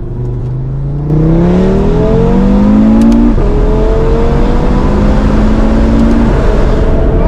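Audi RS3's turbocharged 2.5-litre five-cylinder (DAZA) engine, Stage 2 tuned with a decat downpipe, pulling hard at full throttle on its higher-power map 2. It gets louder about a second in, and its pitch climbs, drops at a gear change a little past three seconds, then climbs again, with another shift near the end.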